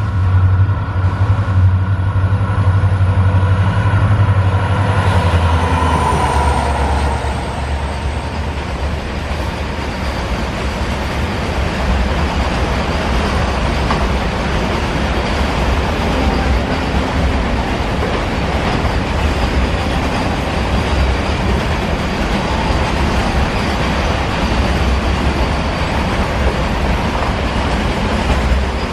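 WDG4 diesel locomotive's two-stroke EMD engine running as it approaches and passes, its high whine falling in pitch about five seconds in. Then comes the steady rolling noise of the long double-stack container train's wagons running over the rails.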